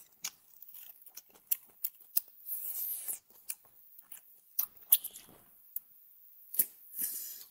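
Close-miked chewing and wet mouth clicks of someone eating meat off a lamb leg bone. Many scattered sharp clicks and crunches come through, with two short hissy stretches about a third of the way in and near the end.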